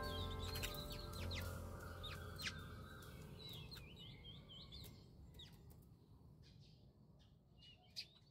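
Gentle background music fading out, with birds chirping through it as the sound dies away. A single sharp click sounds near the end.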